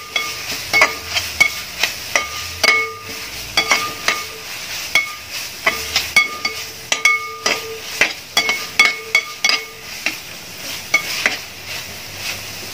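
A metal ladle stirs and scrapes beef pepper fry around a large metal pot, knocking against it irregularly about once or twice a second. Each knock makes the pot ring briefly. Under it is a light sizzle of the nearly dry meat frying in coconut oil.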